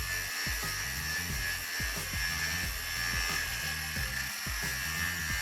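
Cordless angle grinder running with a steady high whine, over background music with a steady beat.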